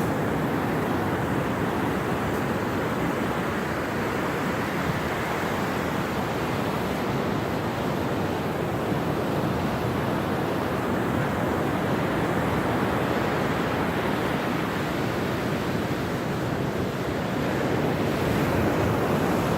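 Surf breaking and washing on the beach in a steady rush, with wind on the microphone.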